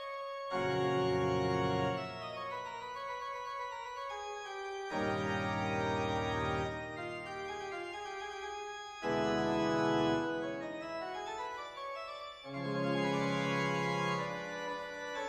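Organ music with sustained chords. Deep bass chords swell in four times, each held for a second or two.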